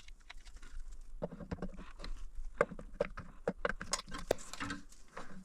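Irregular metal clicks and knocks of tools and engine parts being handled and fitted, speeding up about a second in.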